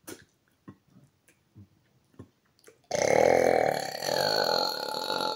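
A man's long, loud burp, really bassy, starting about three seconds in and running for more than two seconds. A few faint short clicks come before it.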